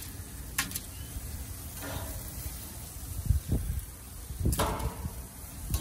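Metal barbecue tongs clicking and scraping against the grill grates as chicken is lifted off, a few sharp clicks about a second in and again near the end, over a low steady rumble.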